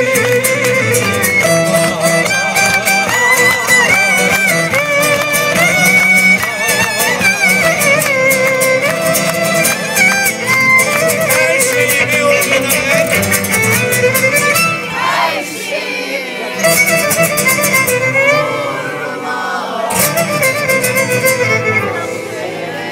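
Turkish art-song music: a wavering melody line over a steady, quick beat.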